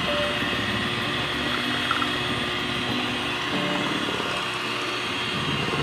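Electric hand mixer running steadily, its beaters whirring through a thick avocado ice cream mixture in a basin.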